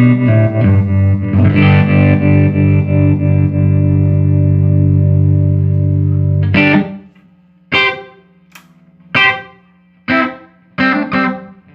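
Electric guitar played through a 1975 Fender Twin Reverb master-volume tube amp, with some distortion, being sound-tested after repair. Held chords ring for about six and a half seconds, then give way to a series of short, clipped chord stabs with quiet gaps between them.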